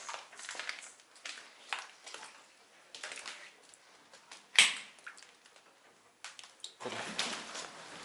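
Footsteps crunching and clicking over debris on a floor, with one sharp knock about four and a half seconds in. Near the end a steady hiss comes in.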